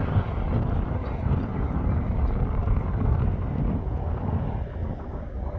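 Steady low rumble of a jet airliner's engines on landing approach, mixed with wind buffeting the microphone.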